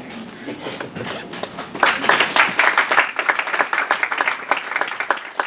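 Small audience applauding: the clapping breaks out about two seconds in, is loudest at first, then thins to scattered single claps near the end.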